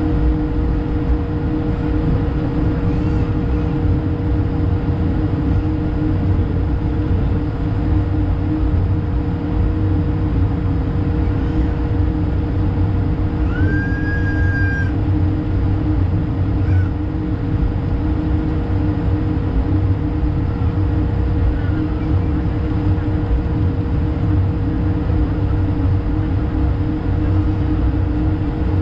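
Airbus A220-300 cabin noise heard near the wing: its Pratt & Whitney PW1500G geared turbofans keep up a steady hum, with two steady low tones over a deep rumble. About fourteen seconds in, a brief high squeak rises and holds for about a second.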